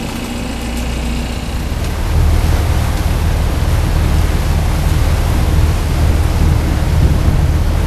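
Steady low rumble of a boat's engine running, with wind and water noise, growing louder about two seconds in.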